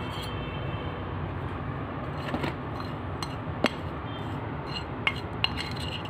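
Metal spoon clinking and scraping against a ceramic plate while stirring powder into a paste, with scattered sharp clicks from about two seconds in.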